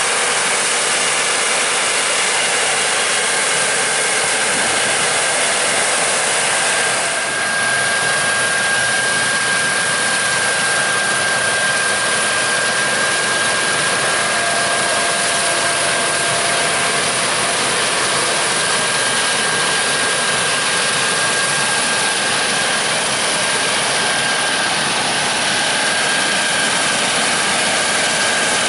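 Harvest machinery running steadily: a loud, even rushing hiss with a thin, high, constant whine over it, and a brief dip about seven seconds in.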